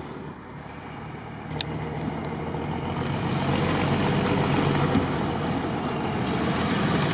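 ZAZ-968M Zaporozhets's rear-mounted air-cooled V4 engine running as the car crawls over snowy, grassy forest ground, growing louder over the first few seconds as it approaches, then holding steady.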